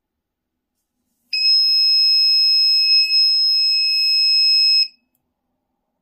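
Buzzer of an SCR-latched laser tripwire alarm sounding one steady, shrill, high tone for about three and a half seconds before cutting off abruptly: the alarm going off.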